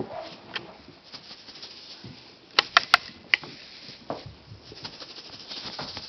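Kittens at play: light taps and scuffs, with a quick run of four or five sharp clicks about halfway through.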